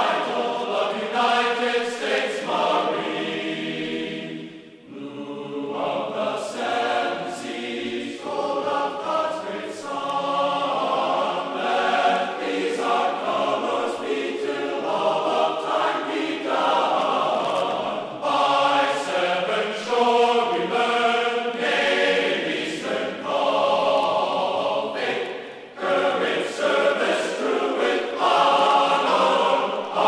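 Background choral music: a choir singing long held chords, with a short break about five seconds in.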